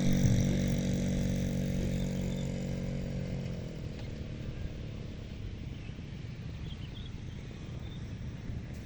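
Small engine running steadily, then its pitch drops about three and a half seconds in and it fades to a low rumble.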